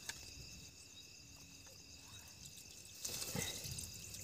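Crickets chirping in a steady, continuous chorus. There is a faint click near the start and some soft rustling about three seconds in.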